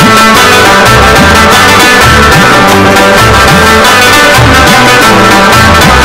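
Background music with plucked strings over a repeating bass pattern and a steady beat.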